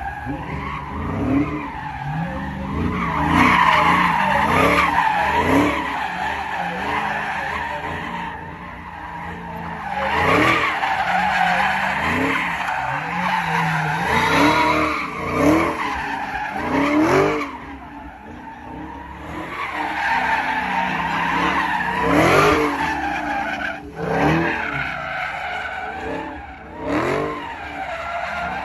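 Dodge Charger Hellcat's supercharged V8 revving hard while the car spins donuts, the revs climbing and falling over and over. The rear tyres squeal and skid on the asphalt, and the noise drops away briefly a few times between spins.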